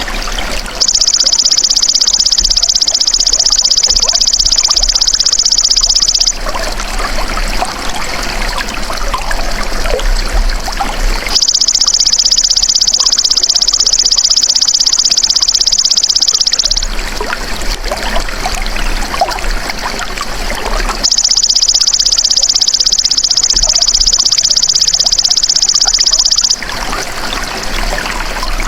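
Belalang emas (golden grasshopper) insect calling: three long, high, even buzzing trills of about five seconds each, coming at regular intervals. Running, trickling water goes on throughout.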